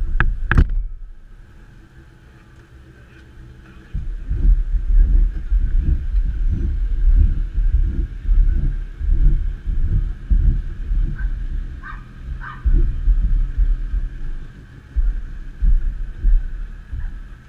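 A few sharp knocks at the start, then from about four seconds in an irregular, gusting low rumble of wind buffeting the microphone.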